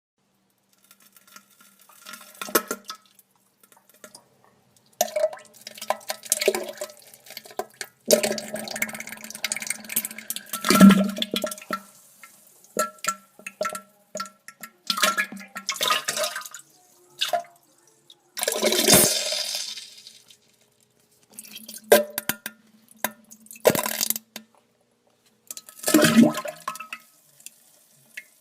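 Diarrhea sound effect: wet, sputtering farts and liquid splatters into toilet water, coming in irregular bursts with short pauses between them, the longest stretch lasting several seconds.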